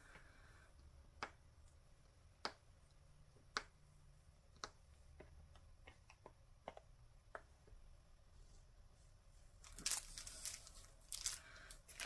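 Small resin charm pendants set down one at a time on a craft mat, a series of faint light clicks about a second apart, followed near the end by a louder crinkle and rustle of a plastic packet being picked up.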